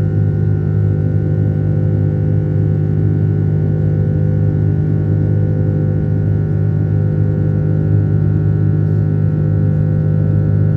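Steady drone of an airliner's engines heard inside the cabin as it climbs after takeoff: a loud, even hum made of several held low tones.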